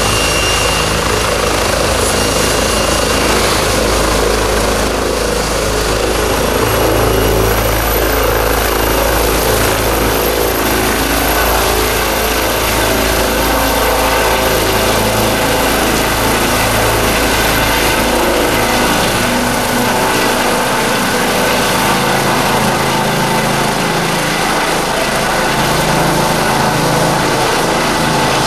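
Eurocopter EC135 twin-turbine rescue helicopter lifting off and climbing overhead: steady turbine whine and rotor noise, with a high whine rising in pitch about seven seconds in. The deep rotor sound drops away in the last third as it climbs.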